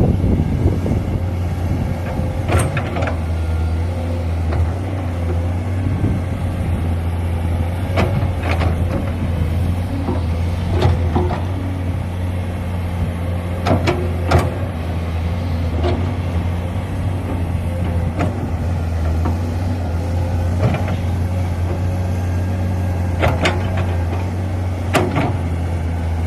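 A heavy diesel engine of earthmoving equipment runs steadily, with a sharp knock or clank every few seconds.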